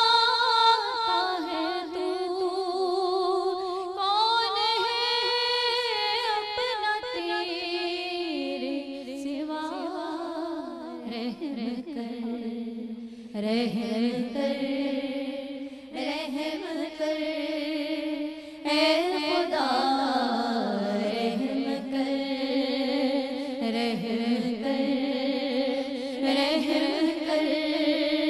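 Women singing a devotional Urdu naat without instruments, drawing out long, wavering notes that slide from pitch to pitch.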